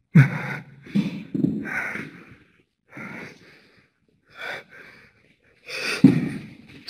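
A man gasping and breathing hard in short spells, with pitched vocal sounds, a quieter stretch in the middle and a louder gasp about six seconds in.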